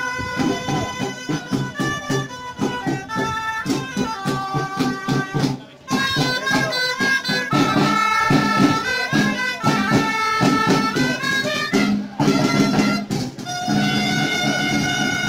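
Gralles (Catalan shawms) playing a traditional dance tune over drum beats, with short breaks in the tune about six seconds in and again around twelve seconds.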